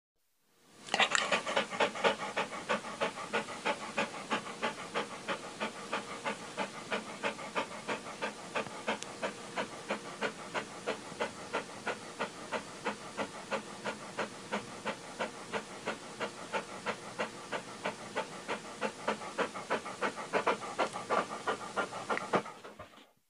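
Small white dog panting fast and steadily, about three breaths a second.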